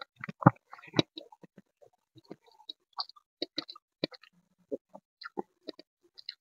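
Mouth sounds of eating a handful of khichdi: wet chewing with irregular clicks and lip smacks, the loudest about half a second and a second in, then sparser.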